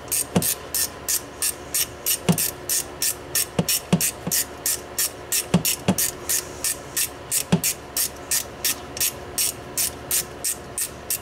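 Hand socket ratchet clicking steadily, about three clicks a second, as a mounting bolt on a new A/C compressor is run in, with a few dull knocks of the tool among the clicks.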